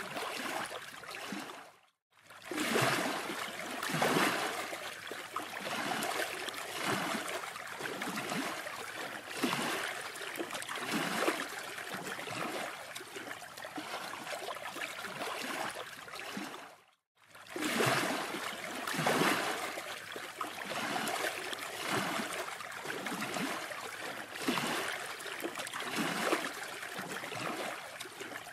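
Sea surf washing onto a sandy beach: a steady rushing noise that swells and eases. Two brief dropouts to silence break it, about two seconds in and again about seventeen seconds in.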